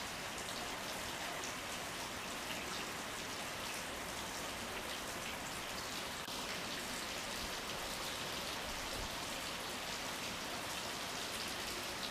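Steady rain falling, an even hiss of fine patter that does not change.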